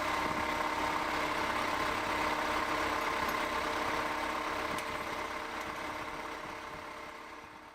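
A machine engine running steadily with a constant hum, fading out over the last few seconds.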